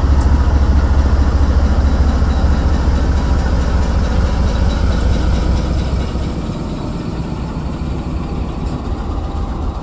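Diesel-electric locomotive (Pakistan Railways AGE-20) engine running with a heavy, deep rumble as it pulls slowly past close by; the rumble weakens about six seconds in as the passenger coaches follow it past.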